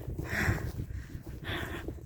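A hiker's heavy breathing on a steep descent, two breathy exhalations about a second apart, over a low rumble of wind and handling on the microphone.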